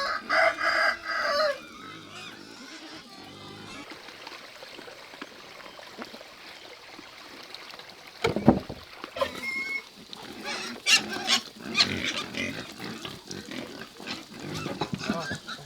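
Pigs squealing and grunting, with a loud squeal in the first second and a half, and a few sharp knocks around the middle.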